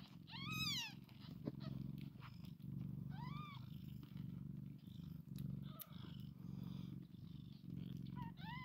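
Nursing mother cat purring steadily in an even pulsing rhythm. Newborn kittens give short high squeaky mews that rise and fall: one near the start, one about three seconds in, and a couple near the end.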